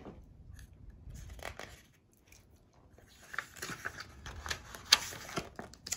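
Faint rustling and scattered clicks of a picture book's paper pages being handled and turned, starting after a brief near-silent gap.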